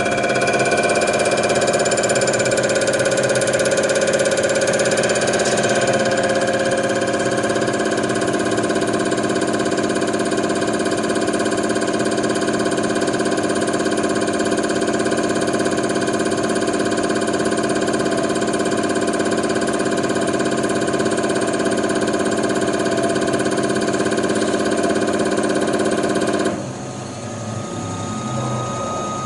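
Common rail injector test bench running its automatic test: the electric drive spinning the high-pressure pump, with the Bosch injector firing in the clean step, a loud steady mechanical hum made of several steady tones that waver in pitch for the first few seconds and then settle. About three seconds before the end the sound drops suddenly and goes quieter as injection stops and the bench moves on to the high-pressure leak step.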